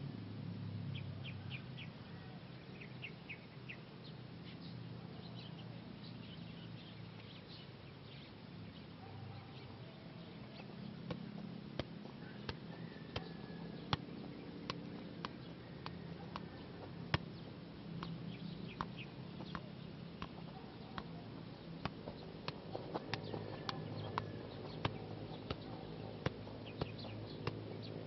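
Soccer ball being kicked and juggled: a string of sharp taps, scattered at first and coming more often near the end, over a steady low outdoor hum. Birds chirp briefly in the first few seconds.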